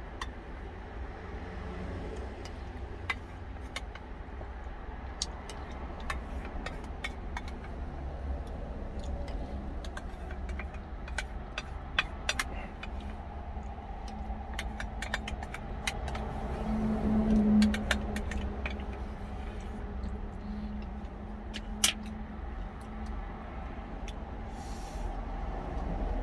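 Spoon clicking and scraping against a plastic food jar while soup is eaten from it, with many small sharp clicks. A steady low vehicle engine rumble underneath, swelling briefly about two-thirds of the way through.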